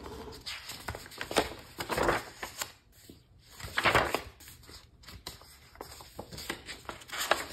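Sketchbook pages being handled and turned: paper rustling in several short sweeps, one of them about four seconds in as a page flips over to the next spread.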